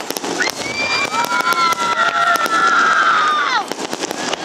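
Fireworks display: a dense run of crackling and popping shell bursts, over which several long whistles sound together, hold their pitch for about three seconds and then drop away about three and a half seconds in.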